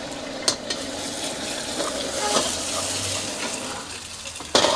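An egg sizzling as it fries in hot oil in a steel wok, with a metal ladle scraping and clicking against the pan; the sizzle swells around the middle. Near the end the ladle strikes the wok in one loud clang.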